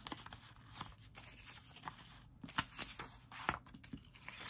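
Paper and small craft embellishments being handled on a tabletop: soft rustling with a few scattered light clicks and taps.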